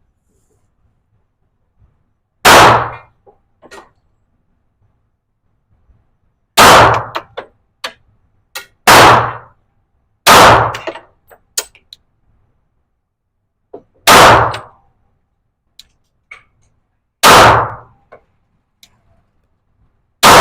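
Pistol shots fired one at a time at irregular intervals, about six in all with one more right at the end, each a sharp crack with a short echoing tail. Faint small clicks fall between some of the shots.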